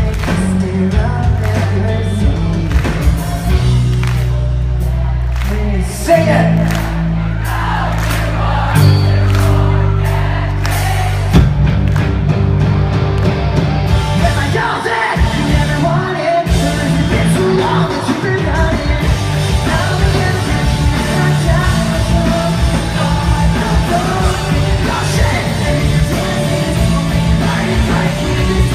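Pop-punk band playing live: a singer over bass, guitars and drums, with crowd yells mixed in. The low end holds long sustained bass notes under sharp drum hits at first, and the full band comes in about eleven seconds in.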